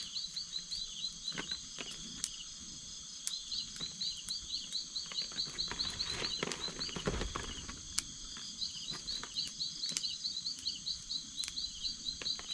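Night-time forest chorus: insects trilling steadily, overlaid by bouts of rapid high chirps repeated several times a second, three bouts in all. Occasional sharp clicks break in.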